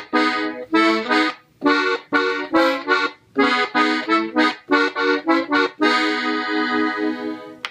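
Gabbanelli three-row button accordion playing a slow norteño ornament: about a dozen short, detached chords made by shaking the bellows back and forth (fuelleo), then one chord held for nearly two seconds that cuts off near the end.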